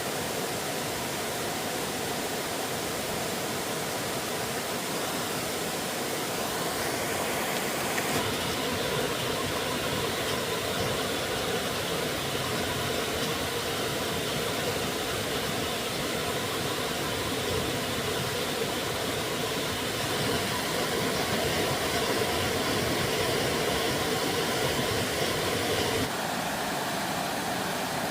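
Steady rush of flowing stream water. Its tone changes abruptly about a third of the way in and again near the end.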